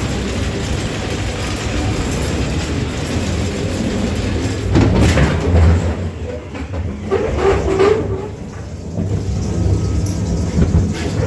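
Ride cars rolling along a steel track, a continuous rumble with clatter from the wheels, loudest about five seconds in.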